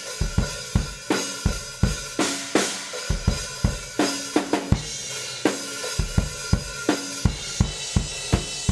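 A drum kit recorded with a single microphone in front of it plays a steady beat of bass drum, snare and cymbals. Near the end the sound passes through a compressor with about a 40 ms attack and 60 ms release, which lets the punch of the bass drum and snare through and dips the sound between the hits.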